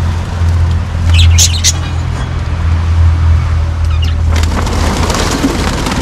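Caged budgerigars giving a few short, high chirps about a second in, over a steady low hum. From about four seconds in a louder rushing, rustling noise comes in.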